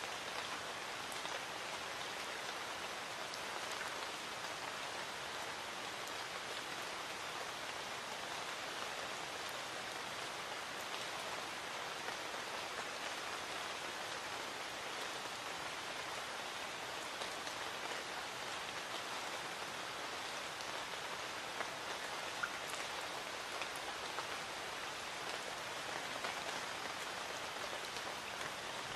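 Light rain falling steadily, an even hiss of drops with a few sharper drips standing out now and then.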